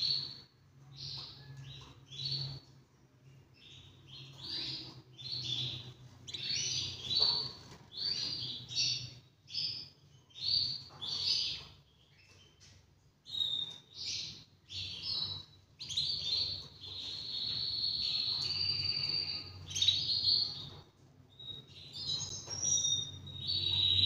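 Male canary singing: short chirping phrases in quick succession, then from about 16 seconds in a long, steady trill held for several seconds. A low steady hum runs underneath.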